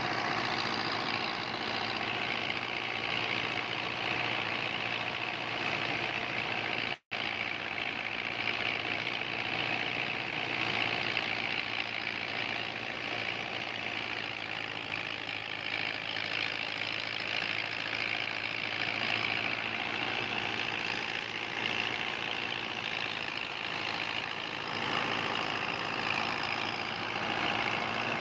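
A tractor engine running steadily under load, driving a rice (paddy) thresher whose drum and blower make a continuous whirring rush. The sound cuts out for an instant about seven seconds in.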